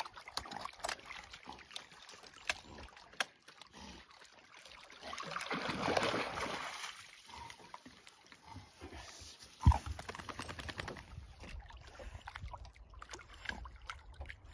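Dogs wading and swimming at a rocky lakeshore, lake water sloshing and splashing around them. A louder rush of splashing comes about five to seven seconds in, and a single sharp knock near ten seconds is the loudest sound.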